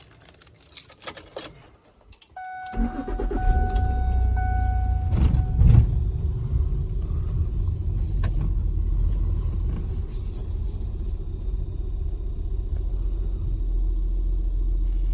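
Keys jangle, then a vehicle's warning chime beeps as the car engine is cranked and starts, settling into a steady idle.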